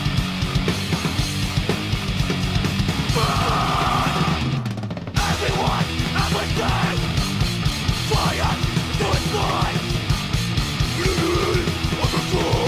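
Hardcore punk/grindcore recording: fast drums with distorted guitar and bass, dense and loud throughout. There is a brief break in the high end just under five seconds in, then shouted vocals over the band.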